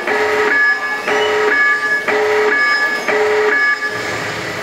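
Two-tone hi-lo siren, a low tone and a higher tone taking turns about every half second, stopping a little before four seconds in.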